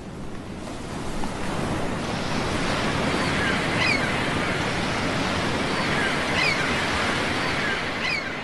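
Sea surf washing onto a sandy beach, a steady wash of waves that fades in over the first second or two. A few short, faint high chirps sound over it.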